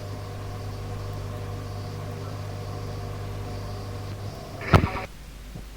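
Radio receiver carrying an open transmission with no speech: a steady hum with several steady tones over hiss, which cuts off about four seconds in, followed by a sharp loud click and crackle as the transmission drops.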